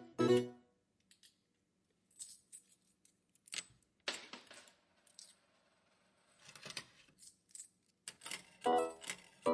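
Slot machine being played: the end of a short electronic chime, then a few seconds of scattered metallic clicks and clinks like coins dropping, and near the end another run of quick chiming tones over the clicking.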